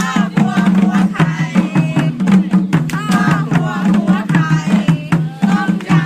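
Upbeat dance music: a steady bass line with drums and sharp percussion hits under a bending, vocal-like melody.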